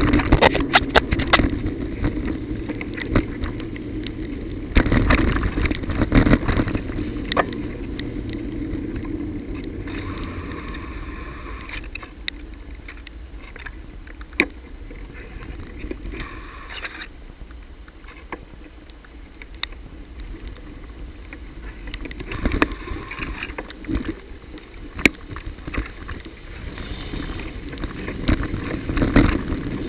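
Riding noise of a bicycle on a wet, broken road under repair: a steady rumble with scattered knocks and rattles from jolts over bumps and holes, louder near the start and near the end.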